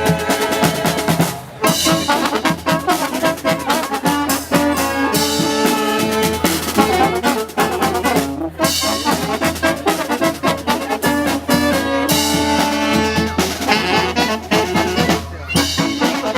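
Live brass band playing an instrumental passage: trombones and trumpets holding chords over a drum kit beat. The band breaks off briefly about a second and a half in and again near the end.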